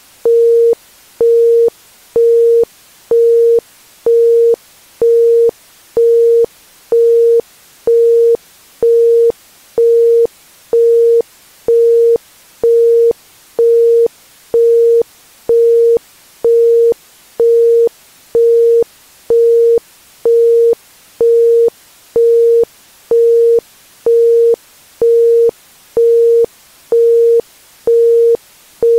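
Isochronic tone: a single pure tone at 465 Hz switched on and off at 1.05 Hz, about one beep a second, evenly spaced, over a faint hiss between the pulses.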